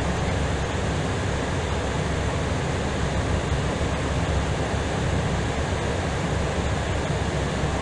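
Steady rushing noise heard from inside an Airbus A320ceo in flight: airflow and engine noise, even and unbroken, strongest in the low range.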